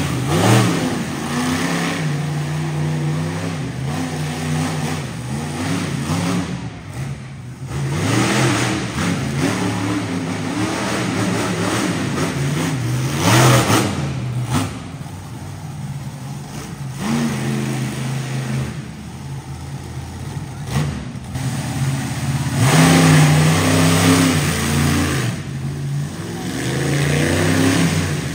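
Monster truck engine revving hard and backing off in repeated surges as the truck drives the course and jumps, with loud bursts of throttle every few seconds.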